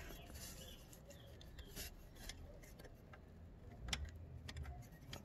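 Faint, irregular metallic clicks and rubbing as the nut and bolt are worked off the motorcycle's frame mount by hand, with one sharper click about four seconds in.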